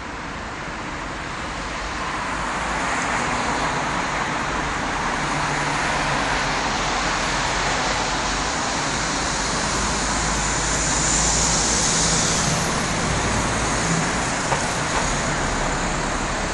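City street traffic noise: a continuous hiss of passing vehicles that builds over the first few seconds and swells again about eleven seconds in as a vehicle goes by.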